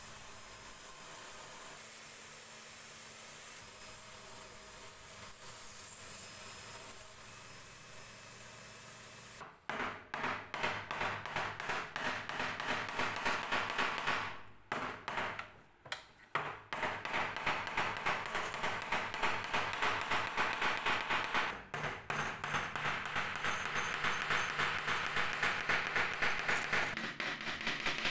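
An electric drill fitted with a wire wheel brush running steadily with a high whine as a small metal hinge is held against it. About a third of the way in it stops, and a small hammer drives tiny nails through the hinge into a wooden frame with quick light taps, about three a second, pausing briefly near the middle.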